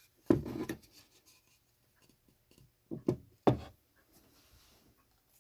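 Handling sounds of model parts and cables being moved and rubbed: a cluster of knocks and rubbing about half a second in, then three sharp knocks around three seconds in.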